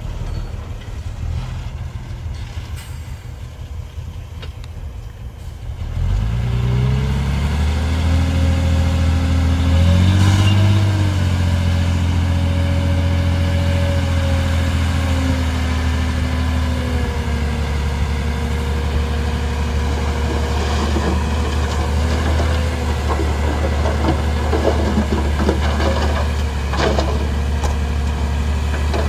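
Heavy diesel engine of an earthmoving machine, low at first, then revving up about six seconds in and holding high revs steadily, with a brief extra rise near ten seconds. A few knocks near the end.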